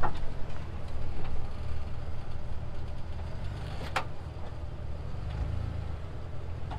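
A vehicle engine running low and steady, with a single sharp knock about four seconds in.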